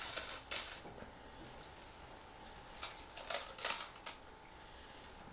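An old wire brush combing through strands of raffia: a few short scratchy strokes at the start, then a longer run of them from about three to four seconds in.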